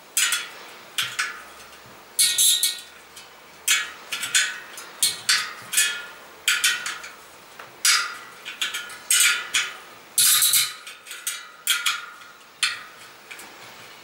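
A spoke key turning the spoke nipples on a tensioned DT Swiss bicycle wheel during truing. It makes an irregular run of sharp metallic clicks and pings, two or three a second, each ringing briefly.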